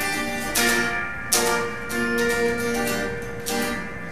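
Electric guitar strumming chords, a sharp strum every half second to a second with the chord notes ringing on between.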